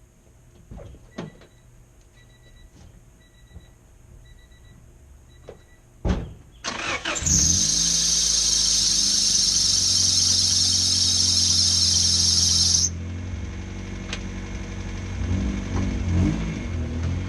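Car chime beeping about once a second, then a thump and the 1992 Honda Civic hatchback's engine starting. A loud high-pitched noise rides over the engine for about five seconds and cuts off suddenly, leaving the engine running.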